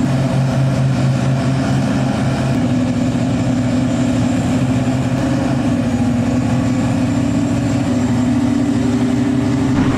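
Heavy diesel engines of a mining excavator and haul truck running steadily while a truck is loaded. The engine note shifts to a higher pitch about two and a half seconds in.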